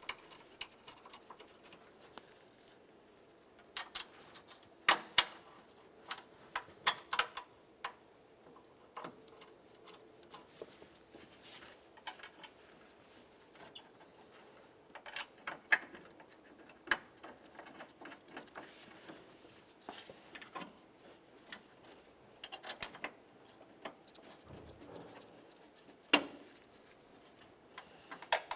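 Irregular light clicks and metallic taps, a few sharper than the rest, of mounting bolts being handled and started by hand into a car's radiator support.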